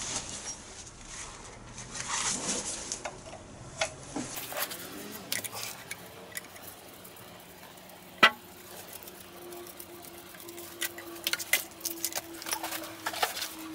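Spanners and other metal hand tools clinking and clattering as they are picked up, sorted and set down, with a single loud sharp clack about eight seconds in. A faint steady hum comes in after the clack.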